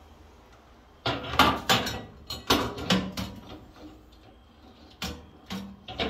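Glass turntable tray of a Samsung microwave oven being set into its enamelled cavity: a quick run of clinks and knocks starting about a second in, then a couple more knocks a few seconds later as it is seated.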